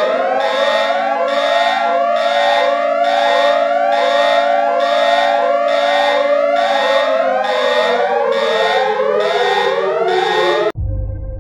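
Seismic alert siren sounding: a loud rising whoop repeating about once a second over a held tone. The tone winds down from about two-thirds of the way through, and the siren cuts off abruptly near the end.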